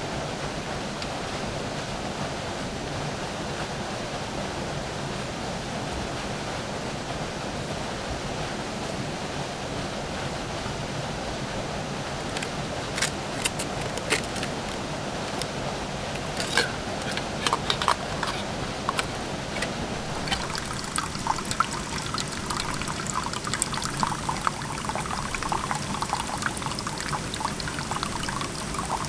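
Flowing forest stream water, a steady rush. About halfway through, scattered sharp clicks and ticks join it and grow denser near the end.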